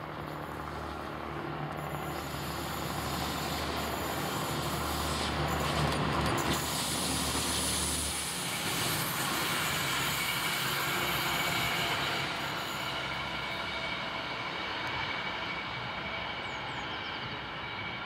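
Yellow diesel service railcar running by on the main line. A steady low engine hum is joined by wheel and rail noise that swells to its loudest about halfway through, then eases off, with some higher ringing tones near the end.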